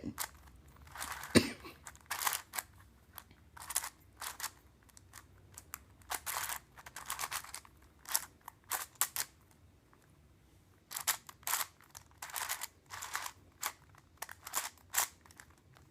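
Mix-Up Cube, a plastic twisty puzzle, being turned by hand: an irregular run of clicking, scraping layer turns, with a thump about a second and a half in and a short pause midway.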